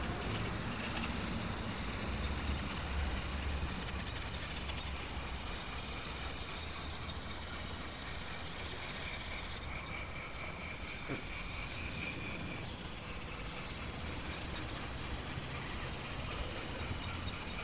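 Small battery-powered electric gearmotor of a model rover chassis running, a faint steady whine that comes and goes, over a steady outdoor hiss with low rumble.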